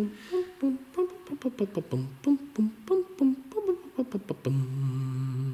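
A person humming a quick tune of short, jumping notes with clicks between them, ending on one long low hum.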